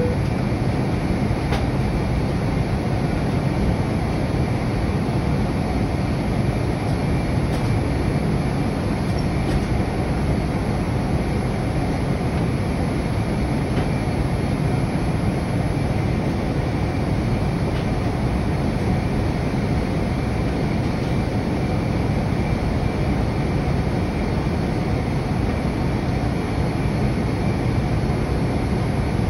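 Steady cabin noise inside a Boeing 787-9 airliner climbing after takeoff: an even rush of engine noise and airflow at a constant level, without change.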